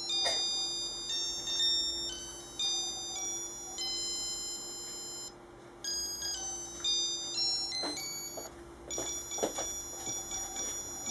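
Casio M-1230 "Melody" watch (module 82) playing one of its built-in tunes on its beeper: a quick run of high, pure electronic notes, broken by two short pauses, with a few faint clicks near the end.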